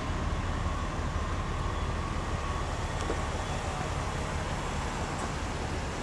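Steady low rumble of vehicle engines idling in a stopped line of traffic, with a faint steady whine over it during the first half.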